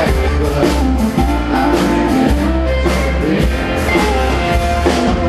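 Live country band playing loud through a concert PA, with drum kit, bass and guitars, recorded from the crowd.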